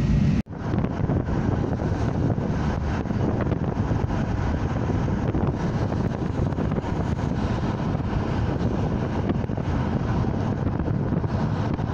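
Steady road and wind noise of a car driving, heard from inside the car, after a brief break about half a second in.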